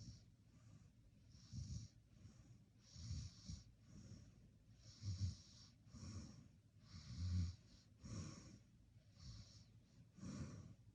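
A person snoring in sleep: soft, breathy snores and breaths, each a fraction of a second long, coming roughly once a second. The loudest snore comes a little past the middle.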